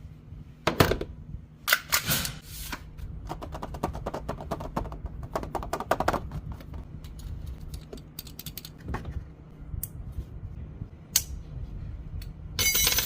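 Pistol slide-kit parts being handled, making irregular sharp clicks and knocks. A run of rapid clicking comes in the middle, and a short dense rattle comes near the end.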